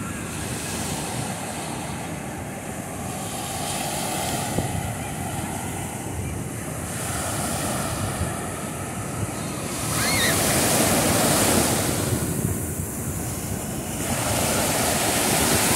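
Ocean surf breaking and washing up the sand close by, with wind buffeting the microphone. The rush of the wash swells up twice, about ten seconds in and again near the end.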